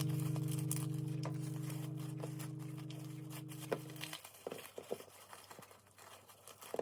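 Background music holds a sustained chord that fades and stops about four seconds in, followed by faint crinkling and a few light taps.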